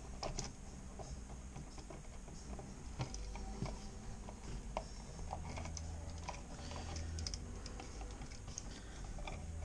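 Scattered light clicks and taps of a dimmer switch and its stiff wires being handled and worked into a wall switch box.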